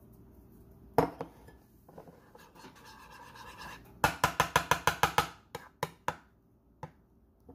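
Sharp clicks and scraping of a metal fork against a ceramic bowl of chicken wings. A single knock comes about a second in. Midway there is a quick run of about a dozen clicks, then a few single taps.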